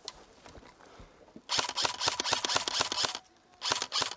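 Airsoft rifle firing on full auto: a long burst of rapid pops about a second and a half in, then a shorter burst near the end.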